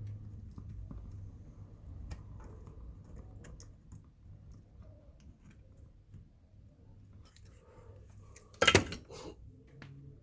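Small clicks and light clatter of tools and parts being handled on a workbench, over a steady low hum. About three-quarters of the way through comes a much louder short clatter, then a smaller one.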